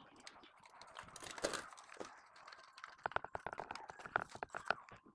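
Light clicks and taps of hands handling wires and parts inside the sheet-metal case of a welding machine, with a quick run of clicks from about three seconds in.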